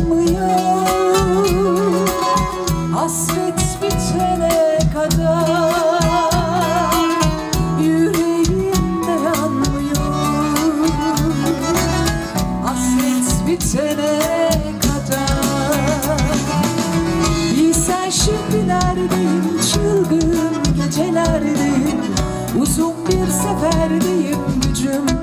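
Live band music: an instrumental passage of a Turkish song, with a lead instrument playing a wavering melody over bass and a steady beat.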